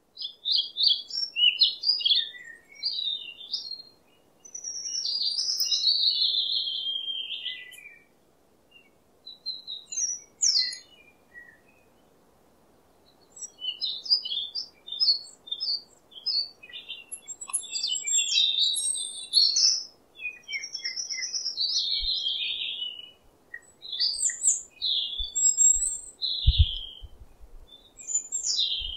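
Songbirds chirping and trilling in bursts with short quiet gaps, over a faint steady background hum. A few short low thumps come near the end.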